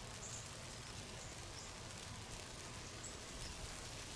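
Faint outdoor ambience: a steady low hiss with a few short, faint high chirps scattered through it.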